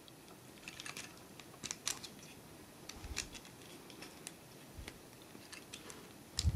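Hard plastic parts of a Transformers action figure clicking and scraping against each other as a spiky plastic accessory is worked onto the toy's wheel. Faint, irregular sharp ticks with a couple of soft bumps.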